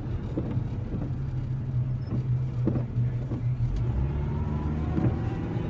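Engine and road noise heard from inside a moving vehicle's cabin: a steady low drone that drops lower about two-thirds of the way through, with a few faint clicks.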